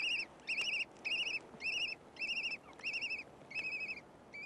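Kea chick begging as it is fed by an adult: a rapid, even series of short, wavering calls, about two a second.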